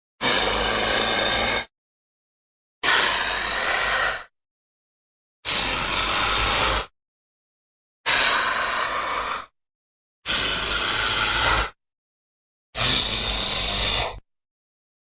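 Hydra monster sound effect: a harsh, breathy hiss played six times, each burst about a second and a half long and cut off cleanly into dead silence.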